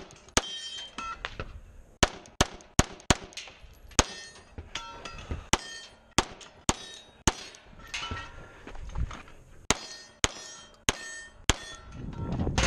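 A string of handgun shots, about two a second, many followed by a short ringing clang of steel targets being hit, the rings at different pitches from different plates. Near the end the shooting stops and there is low rustle and clatter of movement.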